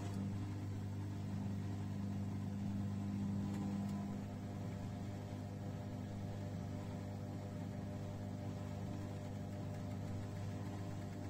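A 1994 Bompani BO27027 washer-dryer running, a steady low mechanical hum, at the stage of its first intermediate spin. A slightly louder tone near the start fades out about four seconds in.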